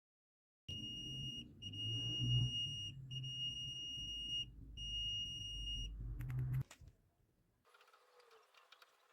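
Multimeter continuity buzzer beeping four times, each beep a steady high tone of about a second, over low handling noise from the probes. A beep means the probes found a conducting path, the sign of a short across the points tested.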